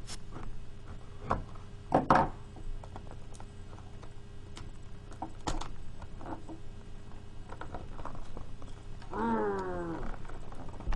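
Scattered clicks, knocks and scrapes as a tightly packed box of trading cards is pried open by hand, the loudest knocks about two seconds in. About nine seconds in comes a short pitched sound that falls in pitch.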